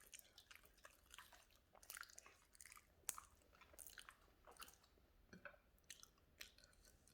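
A dog chewing food it has caught, with faint, irregular crunches and clicks of its teeth.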